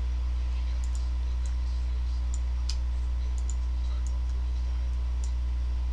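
Computer mouse clicking now and then, scattered single clicks, over a loud steady low electrical hum.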